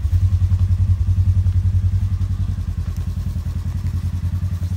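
Polaris General side-by-side's engine idling with a steady, even low pulse.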